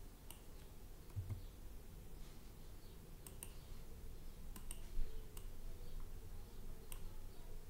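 Computer mouse buttons clicking: about eight faint, sharp single clicks, scattered irregularly and some in quick pairs, over a low steady hum.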